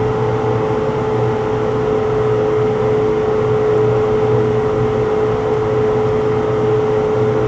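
Steady mechanical hum with one constant mid-pitched tone over a low drone, unchanging throughout.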